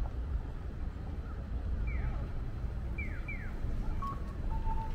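Japanese pedestrian crossing signal starting its electronic two-note cuckoo-style walk tone, a higher beep then a lower one, about four seconds in: the walk light has turned green. Under it runs a steady low rumble of street traffic, and a few short chirps falling in pitch come earlier.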